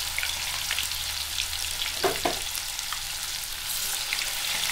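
Raw banana slices sizzling and crackling in hot oil in a kadhai. The steady hiss comes from the moisture of the wet slices boiling off in the oil.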